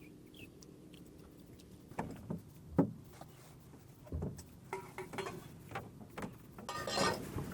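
Irregular knocks, taps and clicks of objects being handled, with a brief rattling clatter near the end.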